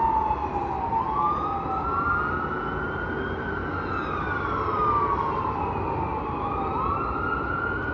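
Emergency vehicle siren in a slow wail, rising quickly and falling slowly in pitch about twice, with a second overlapping wail a little out of step, over a steady low traffic rumble.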